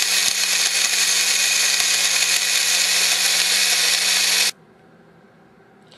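Personal blender's motor running steadily at full speed as it grinds roasted whole spices into a fine powder, a loud whirring with a constant low hum under it. It cuts off suddenly about four and a half seconds in.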